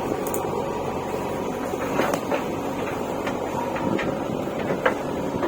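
Diesel engine of heavy construction machinery running steadily, with several short knocks over it.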